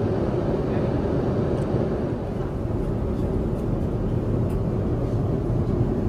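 Steady in-flight cabin noise of an Airbus A350-900: an even low rumble and airflow hiss from the engines and air rushing past the fuselage, with a few faint clicks.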